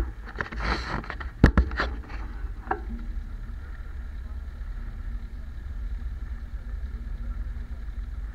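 Tractor engine idling steadily with an even low pulse. A few sharp knocks and some clatter come in the first three seconds, the loudest about a second and a half in.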